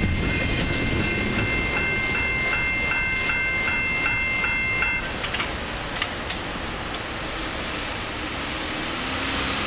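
Railroad crossing warning bell ringing in rapid, even strokes over the low rumble of a freight train clearing the crossing; the bell stops about five seconds in, leaving a quieter hum with a couple of clicks.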